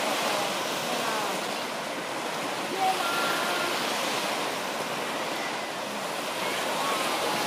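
Small Baltic Sea waves washing onto the beach: a steady, even rush of surf, with faint voice-like calls now and then.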